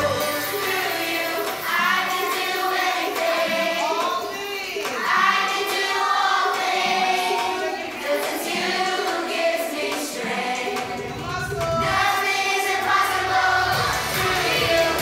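Young children's choir singing a song together, phrase after phrase without a break.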